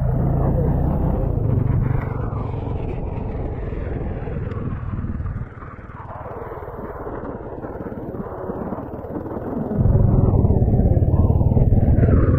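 Engine and wind rumble of a ridden motorcycle at road speed, heard from the rider's position. It eases off about two seconds in and dips to its quietest around the middle. It builds back and turns loud again near the end.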